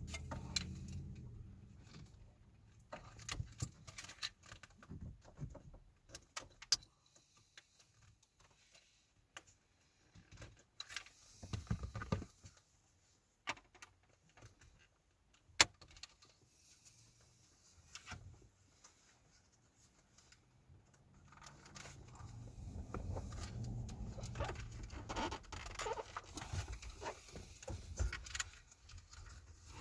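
Scattered plastic clicks and rattles of wiring connectors being unplugged from the back of a pickup's dash trim panel, with handling rustle that grows louder near the end.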